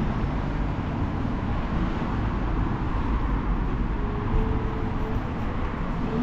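Steady road traffic noise, a continuous rumble of passing cars.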